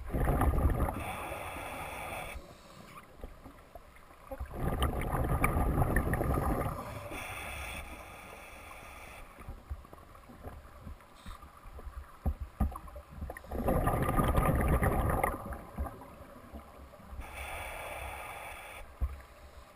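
Scuba diver breathing slowly through a regulator underwater. Three times a loud rush of exhaled bubbles comes, each followed a little later by the thin hiss of an inhalation through the demand valve.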